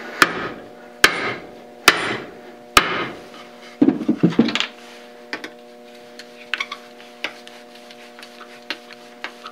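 Four gentle, sharp taps about a second apart on a wooden block, easing the spindle of a Brown & Sharpe dividing head down into its housing, then a short rattle of knocks. A faint steady hum with a few small clicks follows.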